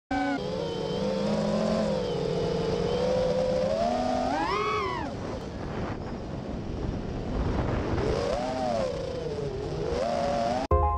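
Freestyle FPV quadcopter's brushless motors (TBS Silk V2 2345kv) and propellers whining, the pitch rising and falling with the throttle, with a sharp climb and drop about halfway through. It cuts off abruptly near the end as music with marimba-like tones begins.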